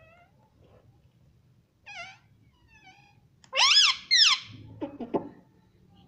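Indian ringneck parrot calling: a short call about two seconds in, a few faint chirps, then two loud calls that rise and fall in pitch a little past halfway, followed by a few short sharp notes.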